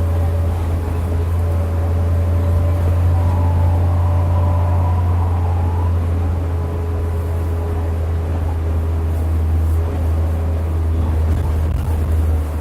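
Hyundai Aerotown bus engine running with a loud, steady low drone. A faint, wavering higher whine rides over it for a few seconds near the middle.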